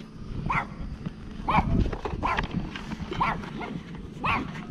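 A dog barking repeatedly, five short barks about a second apart.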